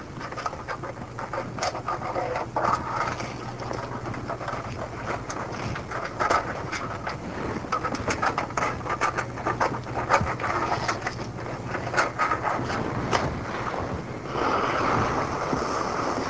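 Razor blade scraping under dried match-head fuses to free them from a metal baking pan: an irregular run of scrapes and clicks, over a steady low hum.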